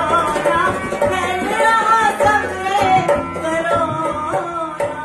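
Hindi folk song played on a dholak drum and a harmonium, with a singing voice. The song closes near the end on a last drum stroke, and a harmonium chord rings on as the playing dies away.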